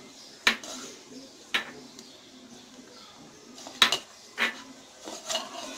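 Boiled potato being mashed by hand in a ceramic bowl: a handful of sharp, irregular clinks and knocks against the bowl, one of them doubled, with soft squashing between.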